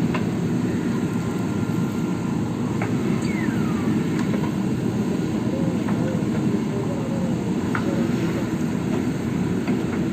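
JCB backhoe loader's diesel engine running steadily under work, with a few sharp knocks spread through and a brief falling squeal about three seconds in.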